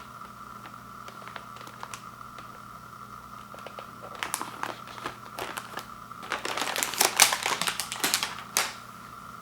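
Plastic cookie package crinkling and rustling as it is handled, in a few light clicks at first and then a busy stretch of crackling that stops suddenly near the end.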